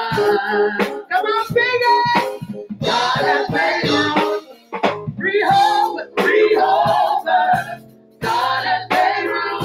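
Gospel praise team singing into microphones, women's voices leading, with keyboard accompaniment. The singing comes in phrases with short breaks between them.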